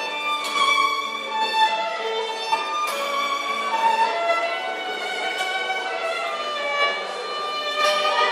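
Folk string band (cimbalom band) playing a tune: several fiddles carry the melody over strummed guitar chords.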